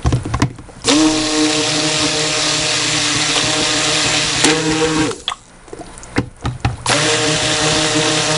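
Stick blender running in a glass bowl of raw soap batter, blending in fragrance oil: a steady motor hum for about four seconds, a short pause with a few light knocks, then it starts up again near the end.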